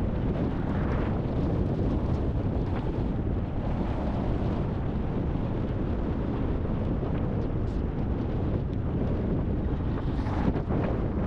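Strong thunderstorm wind buffeting the microphone: a steady, dense rumbling rush with no letup, sped up to double speed.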